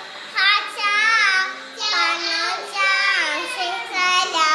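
A young girl's high voice singing in a sing-song pretend Mandarin, about four phrases with sliding pitch and short breaks between them.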